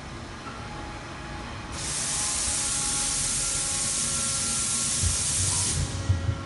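A loud, steady hiss of escaping air. It starts abruptly about two seconds in and cuts off about four seconds later.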